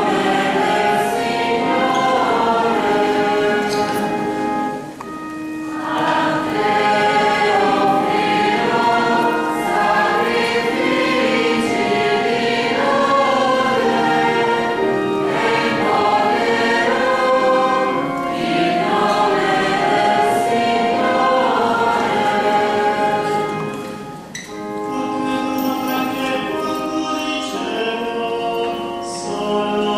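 Mixed choir of men and women singing, with brief breaks between phrases about five seconds in and again near 24 seconds.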